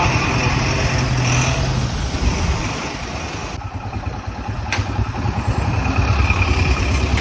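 Motorcycle engine running on the move, its low pulsing beat mixed with road and wind noise; it eases off in the middle and picks up again near the end.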